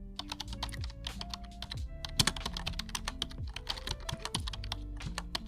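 Lo-fi background music with a dense, irregular run of quick clicks and taps over it; the loudest tap comes about two seconds in.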